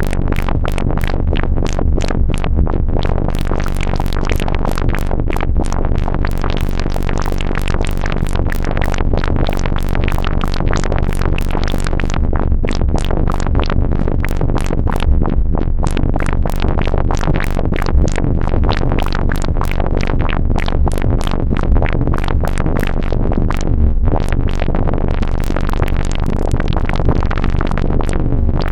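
Eurorack modular synthesizer built around Random Source Serge DUSG and SSG modules, making a synthesized water/liquid effect: a dense, irregular stream of sharp clicks and pops over a steady low hum.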